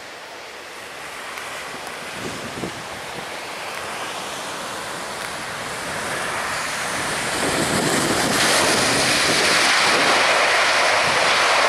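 Jet noise from an Airbus A350's Rolls-Royce Trent XWB engines as the airliner lands and rolls out, a rising rush that grows loud about eight seconds in.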